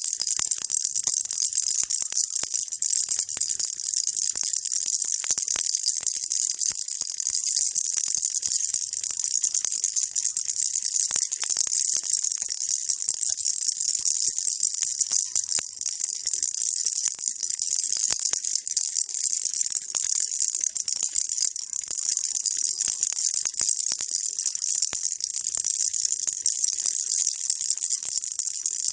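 Baby rattle shaken without pause: a dense, steady, high-pitched rattling of many tiny clicks.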